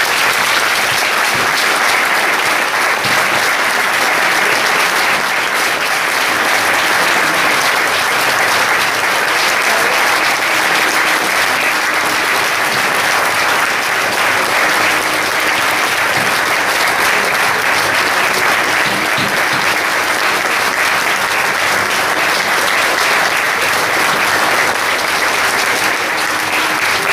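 Audience applauding in a long, steady round of dense clapping.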